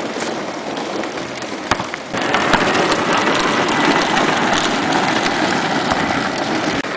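Hard plastic wheels of a child's battery-powered ride-on toy rolling over pavement: a steady rough, gritty noise that gets louder about two seconds in, with a few short sharp clicks.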